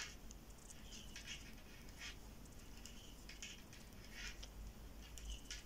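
Faint, irregular clicks and scrapes of metal knitting needles as knit stitches are worked, one every half second to second.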